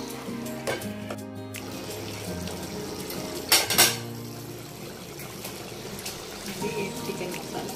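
Background music with steady held notes, over faint kitchen sounds; two sharp metal clinks against an aluminium cooking pot about halfway through.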